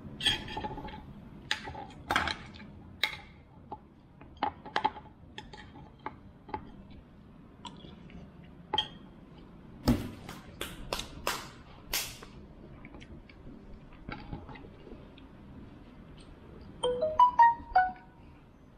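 Scattered light clinks and knocks of a fork and ceramic bowl on a table. A quick run of short pitched notes about a second before the end is the loudest part.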